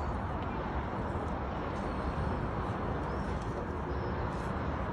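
Steady outdoor city ambience over a harbour: an even low rumble and hiss with no distinct events.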